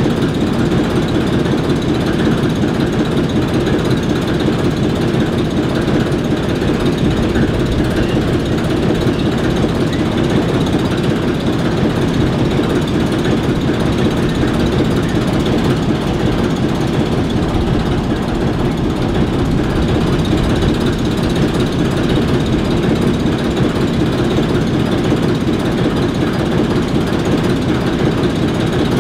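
Two ALCO switcher locomotives, an S4 and an S7, their turbocharged six-cylinder 539T diesel engines idling steadily.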